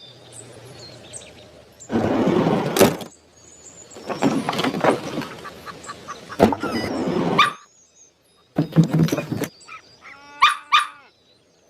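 Chicken calls: several loud, harsh squawking bursts, then a quick run of repeated clucks about ten seconds in.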